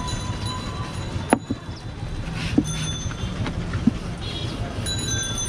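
Steady low rumble of roadside traffic, with three light knocks about a second and a quarter apart.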